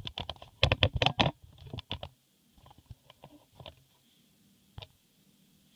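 Clicks and taps of a laptop and small tools being handled on a bench: a quick flurry in the first two seconds, then a few scattered clicks.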